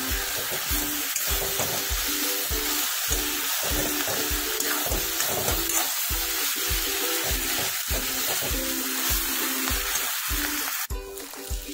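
Maggi noodles and lettuce sizzling in a hot wok while a metal spoon stirs and turns them, over background music with a steady beat.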